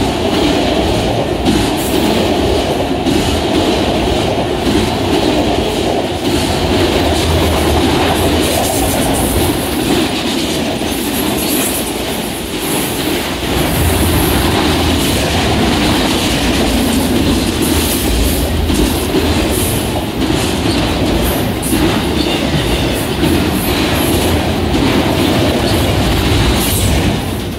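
Union Pacific freight train of autorack cars rolling past close by: a steady rumble and rattle of steel wheels on the rails, with sharp clicks. The noise drops off as the last car goes by at the very end.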